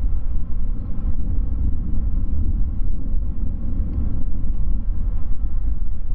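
Boeing 787-8 jet airliner taxiing, its engines a steady low rumble.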